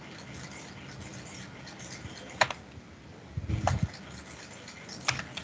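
A few separate clicks of keys on a computer keyboard: three sharp clicks spread out, the middle one with a duller knock under it.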